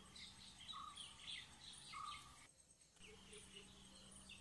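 Faint birdsong: scattered short high chirps and a short note repeated about once a second, over a low steady hum. The sound cuts out for about half a second just past the middle.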